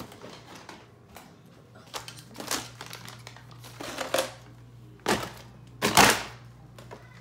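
Rummaging through a pile of plastic toys and cardboard boxes: scattered rustles and clatters, with a few louder knocks in the second half, the loudest about six seconds in.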